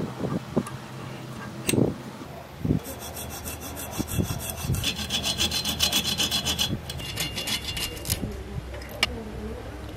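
Hacksaw cutting through the plastic case of a 3.7 g micro servo held in a bench vise, in quick, even back-and-forth strokes that start about three seconds in and stop near the end. Before that, a few sharp knocks come as the part is set in the vise.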